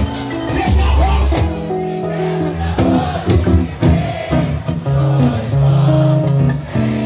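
Pagode band music with singing; the drums and cymbals stop about a second and a half in, leaving held chords and voices.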